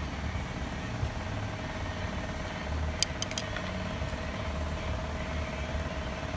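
A few small metallic clicks in quick succession about three seconds in, as a screwdriver works the spade wire connectors off a carpet extractor's solenoid pump terminals. Under them runs a steady low background hum with a faint steady tone.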